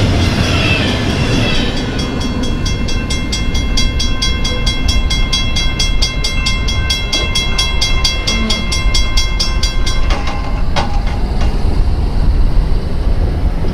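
Train running past with a steady low rumble. From about two seconds in, a high ringing that pulses several times a second sounds over it, then stops suddenly about ten seconds in.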